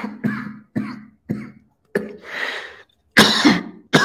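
A man coughing in a fit: a run of about seven sharp coughs, one after another, with a longer, drawn-out one just after two seconds in.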